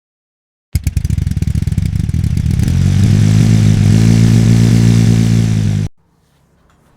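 MZ ETZ 251 single-cylinder two-stroke motorcycle engine. It comes in about a second in with uneven firing, settles into a steady, faster run from about three seconds, then cuts off suddenly. Its exhaust connector is freshly sealed with high-temperature silicone, which the owner says stops any leak noise at that joint.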